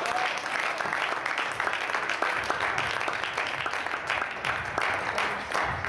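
Spectators applauding with a dense patter of clapping at the end of a table tennis rally.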